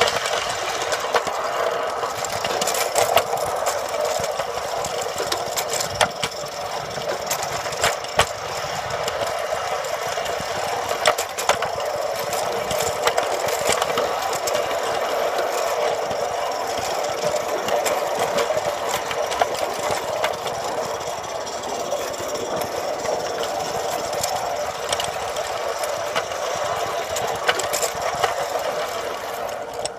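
Roundhouse George live-steam garden-railway locomotive running with its train, heard from a wagon coupled close behind it: a steady quick mechanical chatter with many irregular clicks from the wheels on the track.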